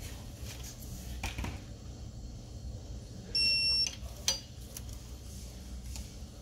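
Electronic torque wrench tightening an axle-end bolt and giving one steady high beep, about half a second long, a little past the middle, the signal that the set torque is reached. A sharp metallic click follows just after, with a few light clicks from the wrench earlier on.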